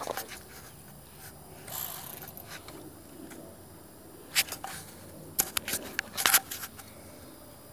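Handling noise: a few sharp clicks and clatters, most of them past the middle, with a short rustle about two seconds in.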